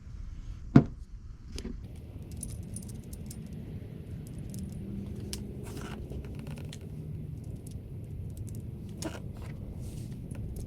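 Small metal engine parts being handled: scattered light metallic clinks and rattles, with one sharper knock about a second in.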